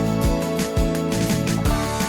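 Background music: sustained pitched notes over a steady beat of about two strikes a second.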